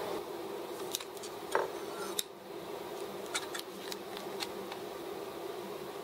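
Scattered light clicks and taps of small metal parts being handled, with a steady low hum underneath, as heatsink paste is applied and the laptop's copper CPU heatsink is set back into place.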